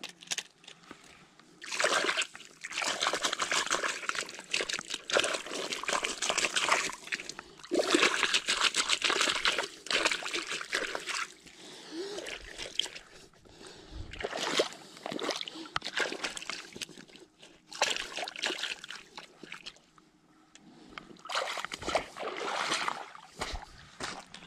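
Footsteps on the wet, pebbly edge of a lake, splashing and scraping in several stretches with short pauses between.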